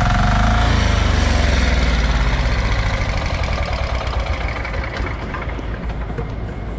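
Small single-cylinder diesel engine of a portable water pump set running: its speed drops over about the first second, then it settles into a steady, even clattering idle.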